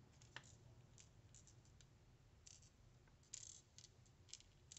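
Near silence with a few faint, scattered clicks and light rustles: a 3D-pen plastic stencil being handled and fitted around a lure body.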